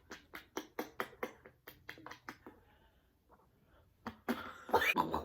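A quick run of light taps, about five a second, fading out over a couple of seconds, then a single tap about four seconds in and a brief voice sound near the end.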